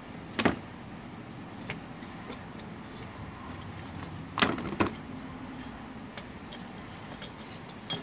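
Plastic GM door lock actuators and a metal mounting bracket being handled and set down on a board: a few scattered clicks and clacks, the loudest two about four and a half seconds in, over steady low background noise.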